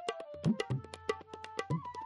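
Indian background music: tabla played in rapid strokes, with low bass strokes that bend upward in pitch, under a held melody line that steps between notes.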